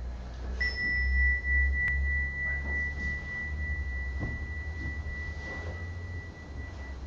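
A single high, clear bell-like chime struck about half a second in, ringing on one steady pitch and slowly fading over several seconds, above a low steady hum. A soft click near two seconds in.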